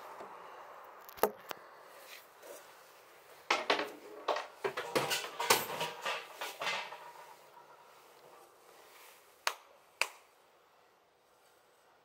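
Clattering knocks and clicks of hard objects: a single knock, then a dense run of rattling hits for about three seconds, then two sharp clicks near the end.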